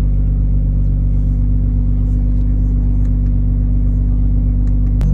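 Car engine idling steadily with a low, even hum. Near the end a sharp click comes, and the idle note changes after it.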